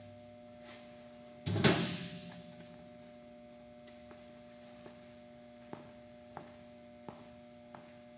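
Background music ending on one final percussive hit with a ringing tail, followed by a faint steady hum and a few soft clicks.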